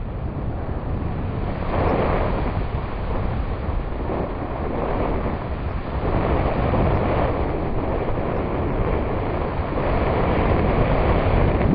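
Wind rushing over the microphone of a paraglider in flight: a steady noisy rush of airflow that swells and eases every few seconds.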